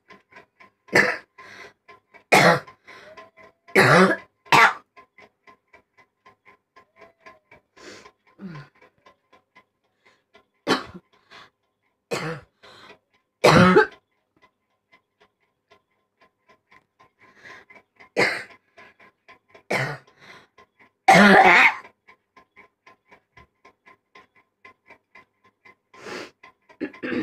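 A person coughing hard in separate fits, about a dozen harsh coughs and throat-clearings spaced out with pauses. The longest, roughest cough comes about two-thirds of the way through.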